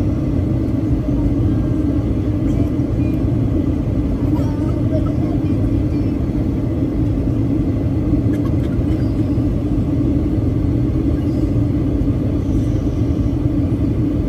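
Steady cabin noise of a Boeing 737-800 in flight: a constant low rumble of engines and airflow that holds unchanged throughout.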